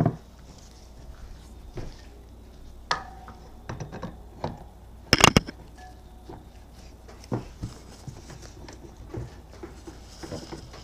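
Scattered metal clicks and knocks as a moped's spoked rear wheel is worked onto its hub and brake drum, with a sharp cluster of three clanks about five seconds in. The wheel is catching on brake shoes that the mechanic suspects are set a little too tight.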